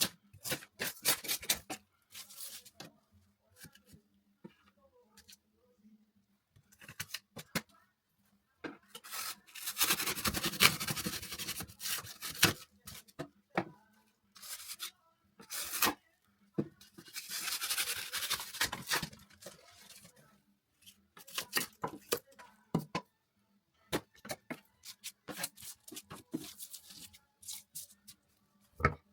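Hand tools scraping, cutting and knocking: scattered sharp clicks and taps, with two longer rasping scrapes, one about nine seconds in and another around seventeen seconds, under a faint steady hum.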